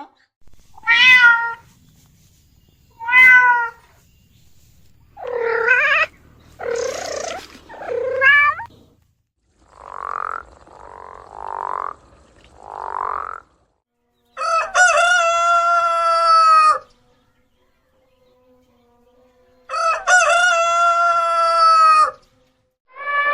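A string of different animal calls one after another. There are several short calls, then a run of four rough calls, then two long, steady calls of about two seconds each.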